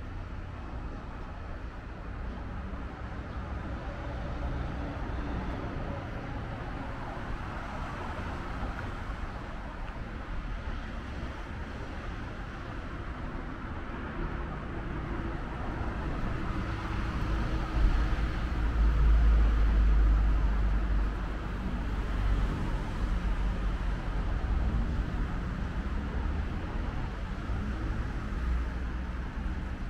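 Steady hum of distant city traffic, with a deeper low rumble swelling for a few seconds just past the middle and then easing off.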